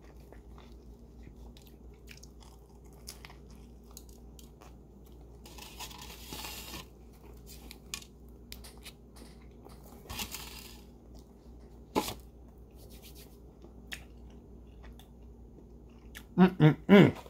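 A person chewing a mouthful of breakfast burrito in a crisp-outside flour tortilla, with soft crunching and wet mouth clicks. Near the end come three short hummed "mm" sounds.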